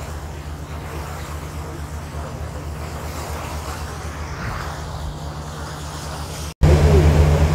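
Steady low drone of the passenger ship's engines under a hiss of wind and sea. About six and a half seconds in, the sound breaks off for an instant and comes back louder.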